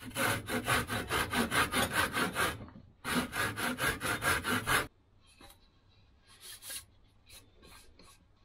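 Steel hand saw cutting a notch into a softwood block clamped in a bench vise: two runs of quick, even strokes, about five a second, with a short pause between them. Fainter scattered knocks follow.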